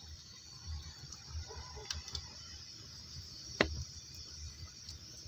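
Split firewood logs burning and crackling, with scattered sharp pops over a low fluttering rumble; the loudest pop comes about two-thirds of the way through.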